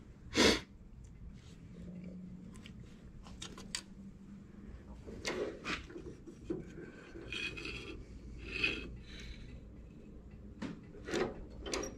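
Hand tools working on metal: a hex key on the set screws of a lawn tractor's two-speed pulley, with one sharp click about half a second in and later scattered clicks and short rasping scrapes.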